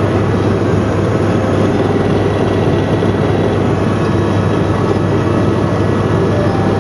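Steady drone of a tour helicopter's turbine engine and rotor heard from inside the cabin: a constant low hum with a thin high whine held over it.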